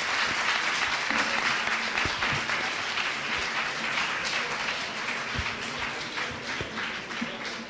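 Audience applauding: a dense, steady clapping that slowly dies down near the end.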